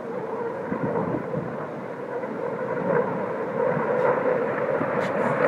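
Jet aircraft engine rumble with a steady drone, growing louder as the aircraft approaches.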